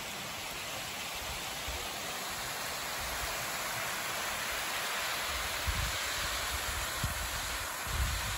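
Steady rush of water spilling over a concrete reservoir spillway, slowly growing louder, with low gusty rumbles on the microphone in the last few seconds.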